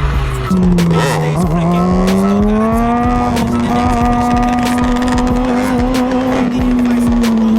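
GasGas EC 250 single-cylinder two-stroke engine revving hard: the pitch dips briefly, climbs over a second or so, then holds high and steady.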